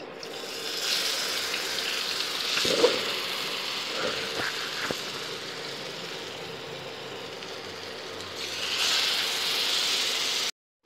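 Batter-coated paneer cubes sizzling as they fry in hot oil in a non-stick pan, a steady hiss that starts about half a second in and swells louder about nine seconds in as a second cube goes into the oil. A sharp knock about three seconds in; the sound cuts off suddenly just before the end.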